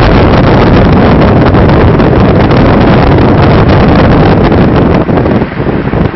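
Heavy wind buffeting the microphone from a moving car, with road and engine rumble underneath; it eases and turns gusty about five seconds in.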